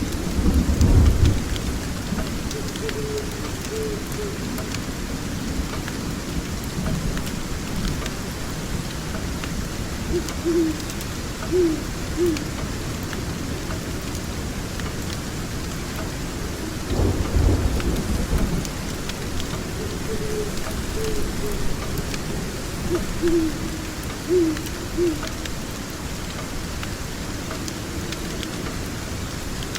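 Steady rain with two rolls of low thunder, one at the start and one about seventeen seconds in. Short hoots come in small groups of two or three in between.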